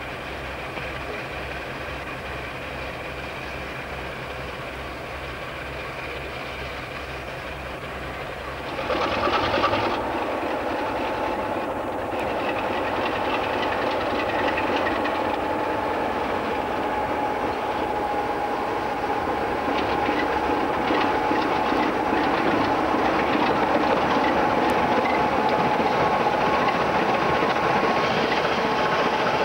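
Diesel locomotive engine idling with a steady low throb. About nine seconds in the engine opens up, and the locomotive runs nearer, growing louder as it passes close by.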